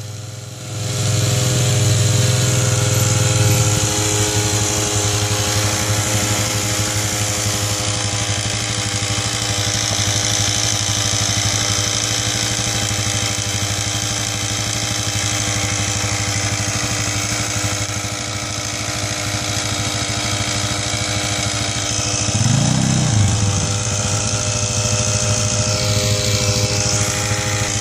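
Quad bike engine and the towed spray bowser's pump running steadily. A strong low hum drops away about three and a half seconds in, and there is a brief rise and fall in pitch near the end.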